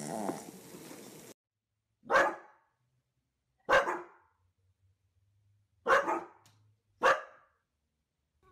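Four sharp single barks from a yellow Labrador-type dog, spaced one to two seconds apart. Just before them, a puppy's snoring cuts off about a second in.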